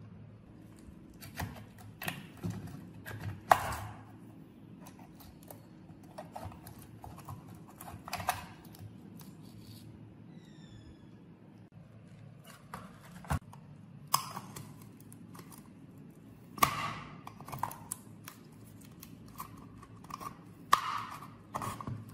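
Irregular clicks, snips and scrapes of metal hand tools on an old mini air blower being taken apart: pliers working the wiring at the motor, then a pointed tool prying at the metal fan cover.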